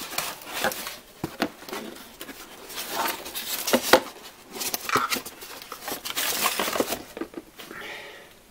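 Cardboard box being opened and a glass-fronted headlight lifted out of its packing insert: irregular rustling, scraping and crinkling of cardboard and packing, with sharp taps and clicks. It quiets near the end.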